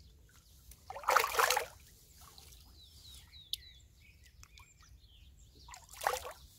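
A hooked carp splashing at the water's surface twice, a short burst about a second in and a briefer one near the end. Small birds chirp faintly in between.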